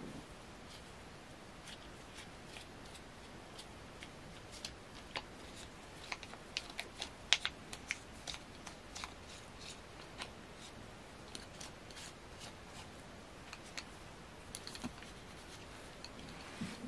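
Small clicks and rustles of a tissue being rubbed over and around the rubber diaphragm of a small air pump held in the fingers, thickest between about six and eight seconds in.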